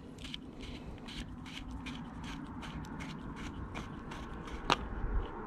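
Plastic fuel filter canister being unscrewed from its housing on a Mercury 50 hp four-stroke outboard with a 14 mm socket: faint, irregular light clicks and scrapes, about three a second, with one sharper click near the end.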